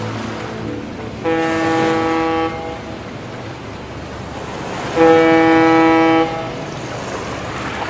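Two long horn-like blasts, each about a second long and a few seconds apart, over a steady low drone.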